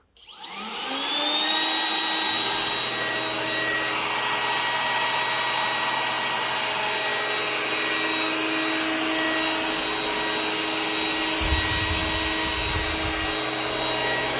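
iRobot Roomba robot vacuum starting a cleaning run: its motor spins up with a rising whine over the first second or so, then runs steadily. A low rumble joins in for about two seconds near the end.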